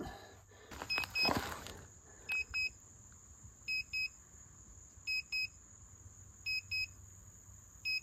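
Digital pin-type wood moisture meter beeping in short pairs, about one pair every one and a half seconds, while its pins are pushed into the end grain of a green, freshly fallen log. A brief rustle of handling comes about a second in.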